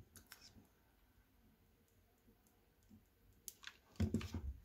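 Faint clicks of small plastic parts being handled and pressed together. Near the end come sharper clicks and a louder clatter as a hot glue gun is picked up off the work mat.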